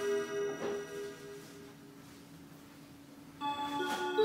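Seiko Melodies in Motion wall clock playing its melody in chime-like notes: they ring and fade, a quieter lull follows, and a new phrase starts about three seconds in. The gears of its moving dial can be heard working under the music.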